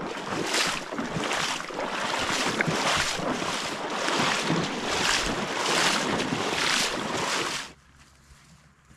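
A person wading through a shallow river, the water swishing and splashing in a rhythmic surge with each stride. The sound stops suddenly near the end, leaving only a faint background.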